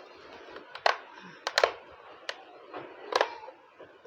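A screwdriver and hands working on a battery table fan's plastic base as its screws are taken out: a handful of sharp, irregular clicks and taps.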